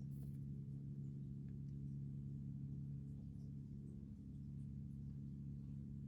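A steady low hum with a few even tones in it, like a motor or electrical drone in the room, unchanging throughout; no clicks or handling sounds.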